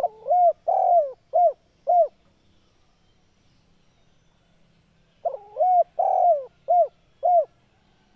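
Male spotted dove cooing: two phrases, one at the start and one about five seconds in. Each is a run of about five coos, a longer note followed by two short clipped ones at the end, the two-ending-note "kuk 2" song type.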